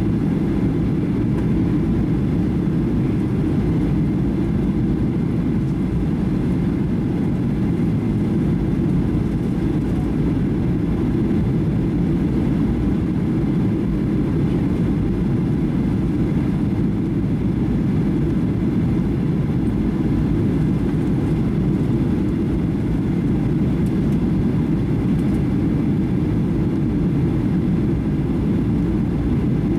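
Steady cabin noise inside a Boeing 737-800 in flight: a constant low rumble of rushing air and the CFM56 jet engines heard through the fuselage, unchanging throughout.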